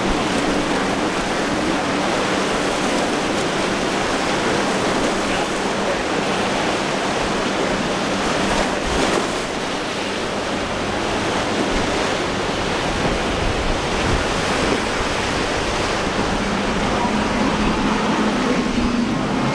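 Steady rush of breaking surf and churned wake water in a rough ocean inlet, with a faint hum of passing outboard motors underneath, strongest near the start and again near the end.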